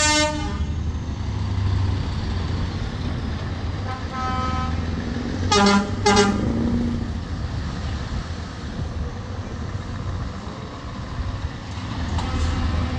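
Scania truck tractor units driving past with diesel engines running steadily, sounding their horns: a horn note fading out at the start, a brief toot about four seconds in, then two short, loud blasts about six seconds in.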